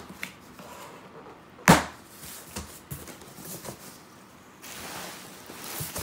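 Cardboard shipping box being opened by hand, with one sharp thump about two seconds in and a few light taps and scrapes of the flaps. Near the end comes a soft rustle of plastic bubble wrap being handled.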